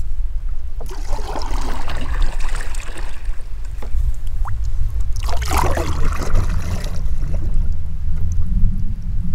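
Canoe paddle strokes in the water: two swishing, trickling passes of the blade, one starting about a second in and a louder one about five seconds in, over a steady low rumble.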